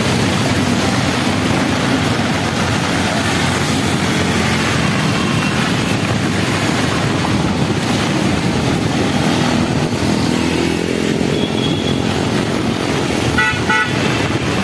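Road traffic driving through floodwater in heavy rain: motorcycle and auto-rickshaw engines running over a steady wash of rain and splashing water, with a vehicle horn tooting briefly near the end.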